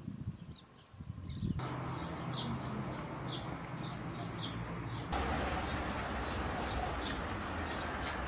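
Small birds chirping in quick, short, high calls over a steady low rumble. The background noise jumps up abruptly about one and a half seconds in and again about five seconds in.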